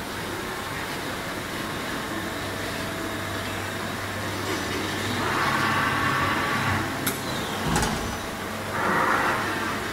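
Steady low hum of machinery in a workshop, with hissing that grows louder twice, once around the middle and again near the end. Two short knocks come about seven seconds in.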